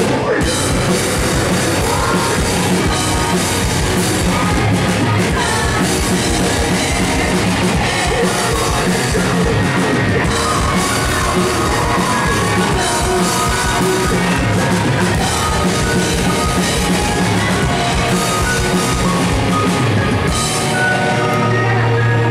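Live post-hardcore rock band playing loud: drum kit, bass and electric guitars, with a vocalist singing into the microphone. About twenty seconds in the drums drop out, leaving a held low note.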